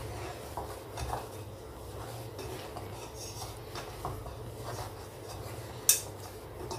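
Hand kneading soft bhature dough in a ceramic bowl: quiet rubbing and pressing, with light knocks against the bowl and one sharper click about six seconds in.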